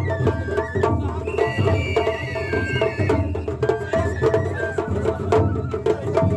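Japanese festival float music (matsuri-bayashi): taiko drums mounted on the float struck in a quick, steady beat of about four strokes a second, with a high sustained melody line playing over the drumming.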